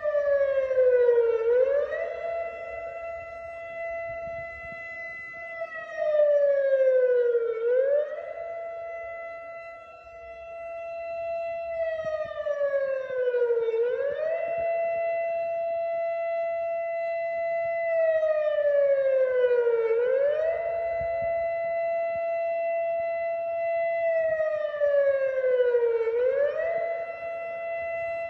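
Civil-defence warning siren of the ASELSAN-built outdoor alarm system sounding a rising-and-falling warning in a test. In each cycle of about six seconds it jumps up quickly, holds the high note for about four seconds, then slides down.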